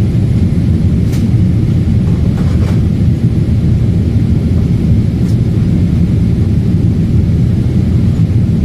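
Steady low rumble of a Boeing 777 heard inside the passenger cabin: engine and airflow noise, with a few faint clicks.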